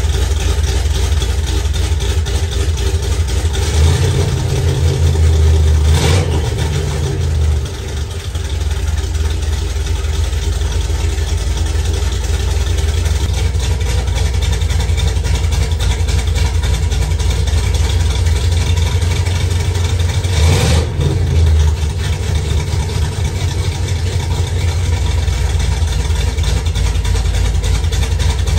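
1966 Chevrolet C10 truck's engine idling steadily, rising briefly about four seconds in and again around twenty seconds in.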